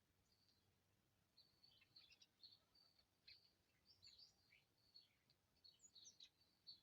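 Faint, rapid chirps and short calls from small birds, thin for the first second or so and then coming thick and fast.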